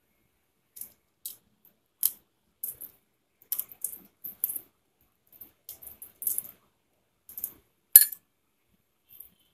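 Dried red chillies being split and deseeded with a knife over a glass bowl: scattered light, dry crackles of the brittle chilli skins and seeds falling into the bowl, with one sharp clink of the knife against the glass about eight seconds in.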